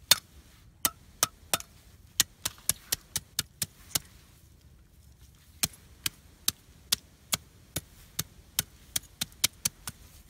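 A series of sharp, dry knocks, about two to three a second, with a pause of a second or so in the middle; the first is the loudest.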